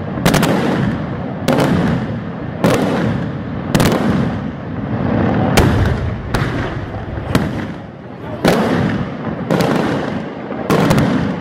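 Daytime fireworks: aerial shells bursting overhead in loud bangs, about one a second, each followed by a long echo.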